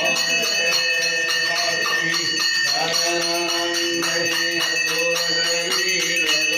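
Devotional aarti sung with temple bells ringing continuously and a steady percussive beat.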